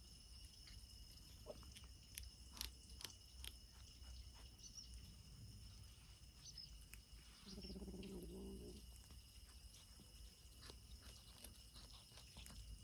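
Faint scattered clicks and smacks of kittens chewing small fish, with one low-pitched sound lasting about a second about eight seconds in.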